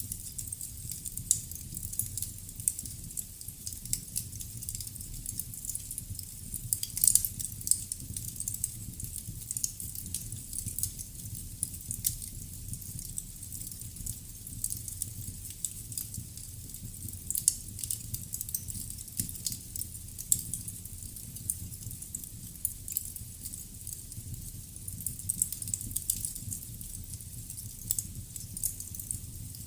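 Glowing fireplace embers crackling, with irregular small pops and snaps over a faint steady hiss, a flurry of louder pops about seven seconds in.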